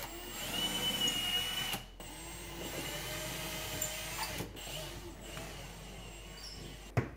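Cordless drill running in three short bursts as it drills into the wall, with a high whine, stopping briefly about two seconds in and again about halfway through. A sharp knock comes right at the end.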